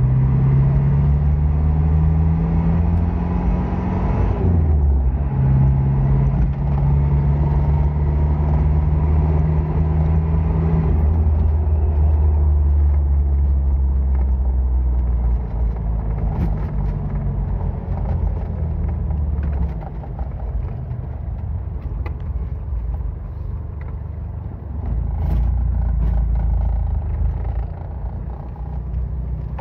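A car running on the road, heard from inside the cabin: a steady engine hum over low road rumble. The engine note shifts about four seconds in and fades out after about eleven seconds. The overall noise eases for a stretch in the second half, then picks up again near the end.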